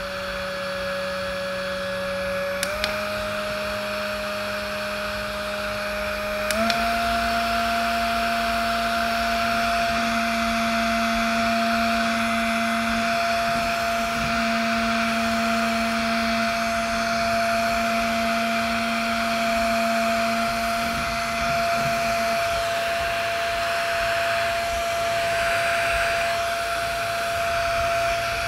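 Handheld rechargeable bladeless fan running, a steady motor whine over a rush of air. It is clicked up through its speeds: the whine steps higher about three seconds in and again about seven seconds in, and the top, strongest speed then holds steady.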